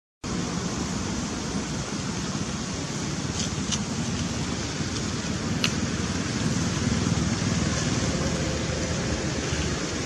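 Steady rushing background noise with a few faint clicks around the middle; no monkey calls are heard.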